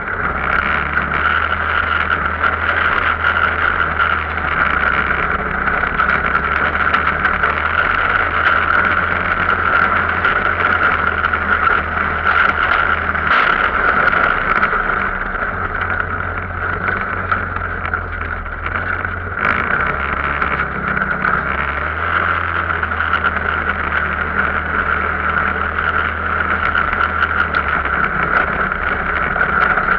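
Arctic Cat off-road vehicle engine running steadily while under way, its note changing a couple of times.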